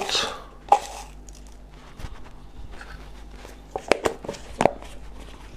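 Small handling sounds of measuring salt with a metal measuring spoon from a plastic salt tub: a few sharp clicks and knocks, the loudest two a little before and after four seconds in.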